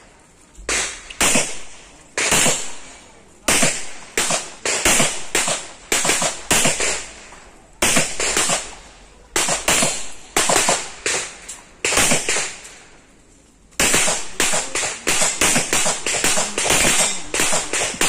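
Pistol shots fired in quick pairs and fast strings during a practical-shooting course of fire, each shot a sharp crack with a short echo. There is a gap of about a second a little past the middle before the firing resumes.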